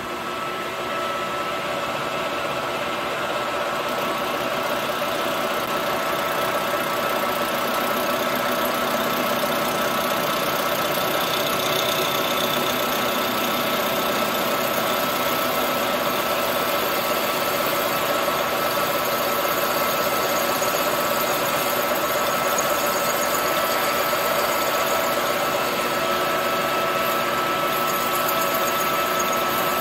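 Colchester Master metal lathe running steadily while its tool takes a light cleanup cut on a chainsaw cylinder: an even mechanical drone with a steady high whine and a lower steady hum.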